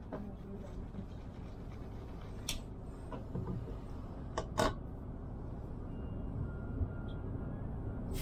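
Railway station platform ambience: a steady low rumble with a few sharp clicks, the first about two and a half seconds in and two more close together a couple of seconds later.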